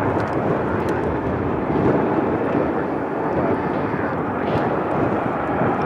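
Boeing 737-800's CFM56-7B turbofan engines running steadily at taxi power as the airliner rolls along the taxiway.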